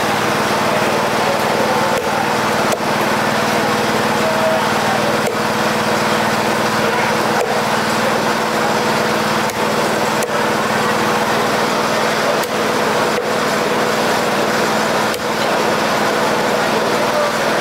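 A small engine or motor drones steadily with a constant hum. Now and then a cleaver knocks as it chops through trevally on a wooden chopping block.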